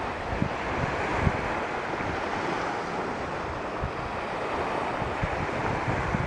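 Small surf washing onto a sandy beach, a steady hiss of breaking waves, with wind buffeting the microphone in low gusts, strongest about half a second and a second in.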